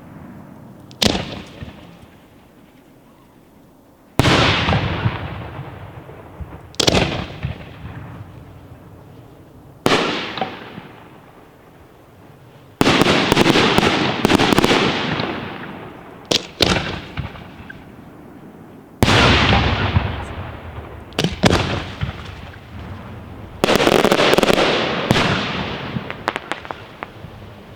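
Aerial fireworks bursting overhead: about ten loud bangs a few seconds apart, some in quick pairs. The biggest are each followed by several seconds of fading noise.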